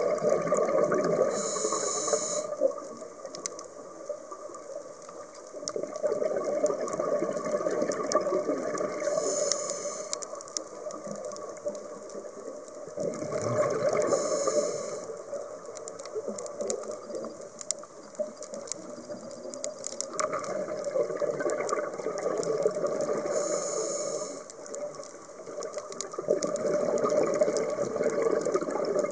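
Scuba diver breathing through a regulator underwater: a short hiss on each inhale, four times, spaced several seconds apart, and between them a long rush of exhaled bubbles that swells and fades.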